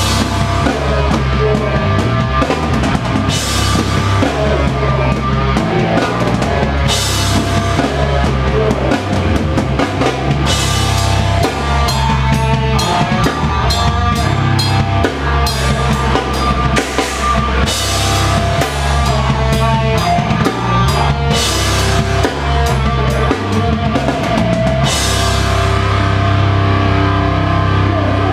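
Live rock band playing loud, heard from right beside the drum kit: pounding drums and bass drum with repeated crash cymbal hits over bass and guitar.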